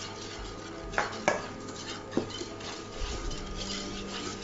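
Wire whisk beating egg yolks and sugar in a small saucepan: steady scraping of the whisk against the pan, with three sharp clinks in the first half.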